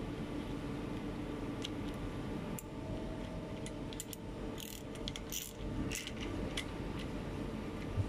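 Ratcheting wrench undoing the bolt of a truck disc brake's pad retaining bar: irregular metallic clicks and clinks, bunched in the middle, over a steady low hum.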